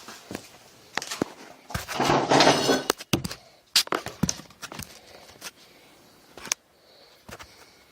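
A phone being handled and repositioned while recording: a string of knocks and clicks, with a louder scraping rustle about two seconds in.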